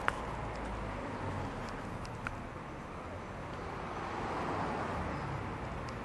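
Background hum of street traffic heard through an open workshop door, steady and low, swelling slightly about four to five seconds in. A couple of sharp clicks at the very start.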